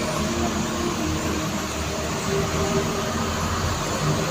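Safari ride truck running steadily, a continuous engine hum and rolling rumble heard from on board.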